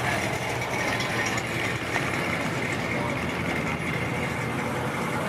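Steady traffic noise: car engines running and idling as cars move along the road, an even low rumble with no single event standing out.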